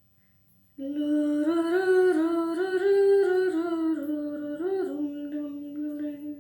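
A woman humming a tune, starting about a second in and stepping up and down in pitch, stopping near the end.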